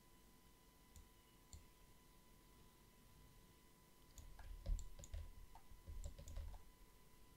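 Faint clicks from a computer mouse and keyboard: two single clicks in the first two seconds, then a quick run of clicks and key taps from about four seconds in until shortly before the end, over a faint steady tone.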